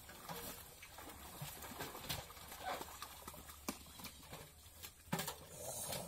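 Irregular wet slaps and splashes of live fish flapping in a seine net held in pond water as the catch is handled by hand.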